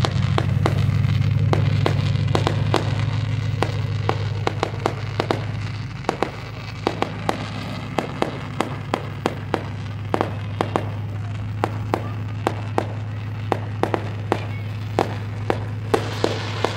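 Fireworks popping and crackling: a string of sharp pops, about two or three a second, over a steady low hum that drops somewhat about six seconds in.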